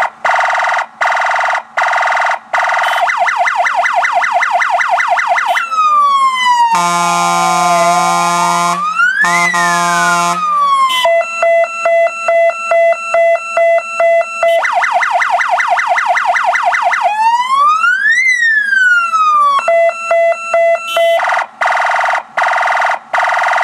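Fire engine's electronic siren run through its tone patterns. It gives short pulsed tones, fast warbling sweeps, slow rising-and-falling wails, and stepped alternating tones. A deeper horn-like blast sounds twice around the seventh to tenth second.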